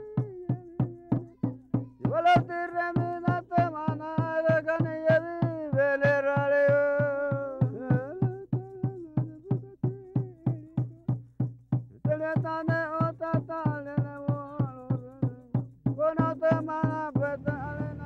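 Ceremonial chant sung in long held phrases over a steady drum beat of about three strokes a second, the singing pausing and resuming between phrases.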